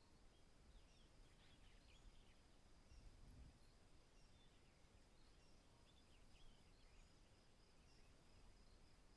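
Faint wild ambience: scattered short bird chirps over a steady high insect hum, with a soft low rumble about three seconds in.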